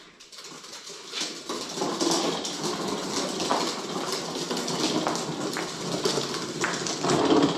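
Continuous rustling and crinkling with many small knocks and clicks as things are handled and tidied away, likely packaging and parts from the pressure washer's box. It swells over the first couple of seconds and is loudest near the end.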